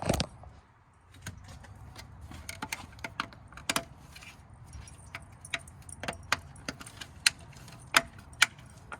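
Irregular sharp clicks and taps of hard plastic as a 3D-printed coilover cover is handled and pressed onto the top of a BC coilover, with the loudest clicks near the end.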